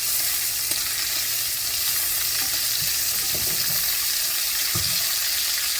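Beef tips and freshly added chopped vegetables frying in hot grease in a pan: a steady sizzle.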